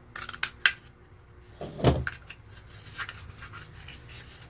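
Scissors cutting through a cardboard tube: a few sharp snips in the first second, then a dull thump about two seconds in and light handling of the cardboard.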